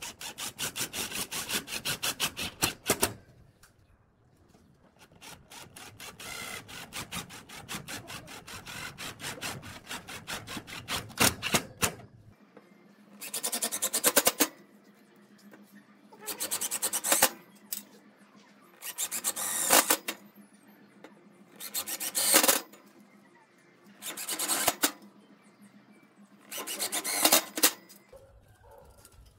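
A cordless drill drilling through a steel hinge into galvanized steel tubing in two long runs, then a Makita cordless driver sinking hex-head screws through the hinge into the metal in six short bursts, about one every two and a half seconds.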